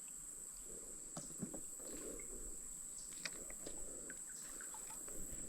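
Insects chirring in a steady high drone, with faint scattered small ticks.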